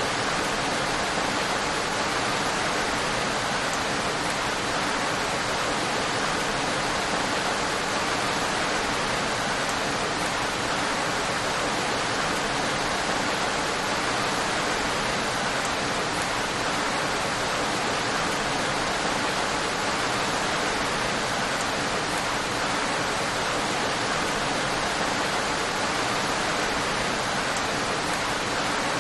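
Steady rain: a dense, even hiss with no separate drops standing out and no change in level.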